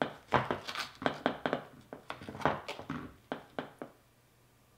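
Plastic spatula scraping and clicking against the bottom and side of a glass baking dish as it is worked under a square of cake, a quick run of taps and scrapes that stops about four seconds in.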